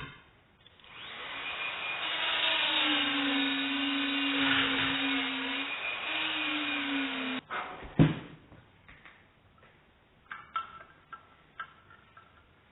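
A small electric power tool motor spins up and runs steadily with a whine for about six seconds, then cuts off suddenly. A sharp knock follows about a second later, then a few light taps.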